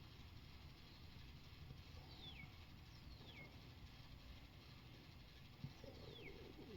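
Faint bird calls against a quiet background: three short whistled notes, each sliding down in pitch, about two, three and six seconds in, with a single soft knock just before the last one.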